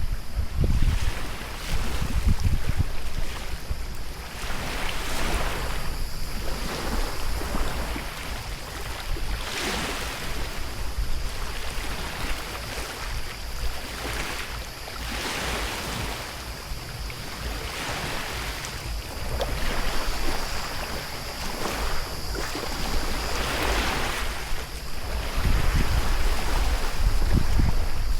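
Stand-up paddle blade dipping and pulling through the sea water, a soft swish every couple of seconds, over lapping water. Wind rumbles on the microphone near the start and again near the end.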